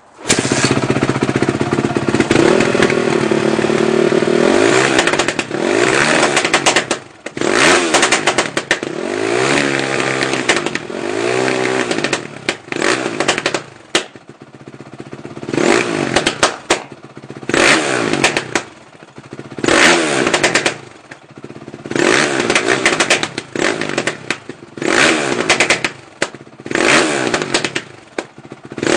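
A Honda CRF450's single-cylinder four-stroke engine, started hot with the hot start lever, fires and catches right at the start. It is then revved repeatedly: long rises and falls at first, then short throttle blips about every two seconds, with sharp pops and crackles as the revs drop.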